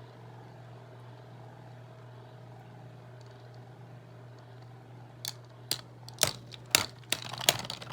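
Two Beyblade spinning tops, one a custom 3D-printed Agèma Ares, whirring steadily in the stadium. From about five seconds in they clash repeatedly: a run of sharp, irregular clicks that comes faster toward the end.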